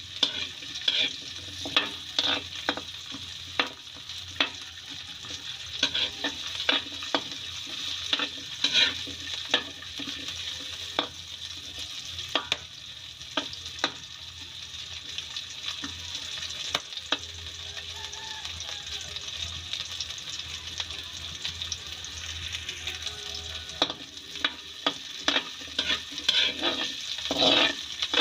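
Carrot cubes frying in oil in a wok: a steady sizzle, with a metal ladle scraping and tapping against the pan as they are stirred, the taps coming thickest near the end.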